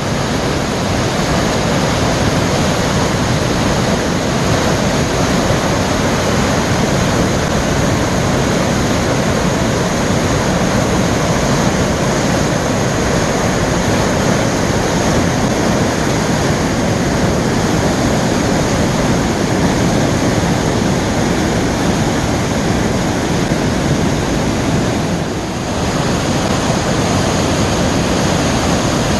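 Waterfall in full spate after heavy rain, its falling water making a loud, steady rush that dips briefly once near the end.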